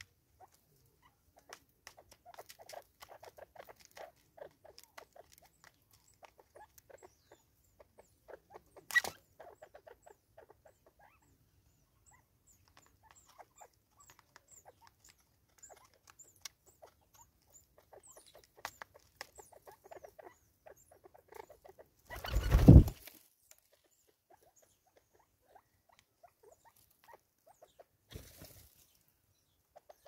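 Natal spurfowl pecking seed from a plastic tub and scratching on a tree stump: a scatter of small, quick ticks and taps, with one sharper click about nine seconds in. A louder rustling thump lasting about a second comes about three-quarters of the way through, and a softer one near the end.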